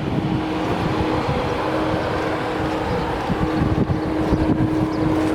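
Wind buffeting the microphone, a rough, fluttering rumble, over a steady low hum.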